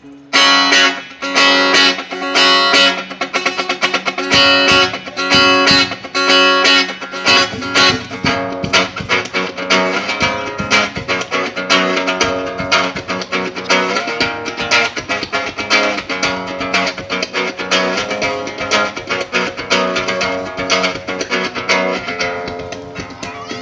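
Live band's guitar intro: rhythmic strummed and plucked guitar chords that start abruptly, with deeper bass notes filling in about seven seconds in.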